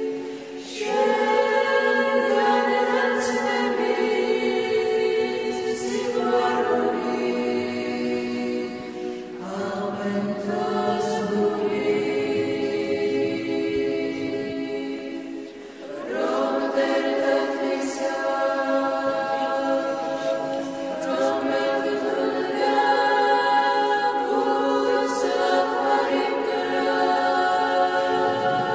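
A choir singing a slow Orthodox church chant a cappella in long, held chords, with short breaks between phrases about ten and sixteen seconds in.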